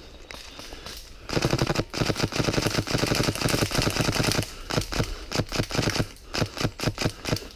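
Airsoft rifle firing: a VFC HK417 replica with a PolarStar compressed-air engine. Starting about a second in, it fires long strings of rapid automatic shots, then a quick run of single shots near the end.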